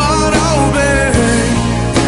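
Portuguese-language Christian song playing, with no words in these seconds: a sliding melodic line over a steady band with bass and drums.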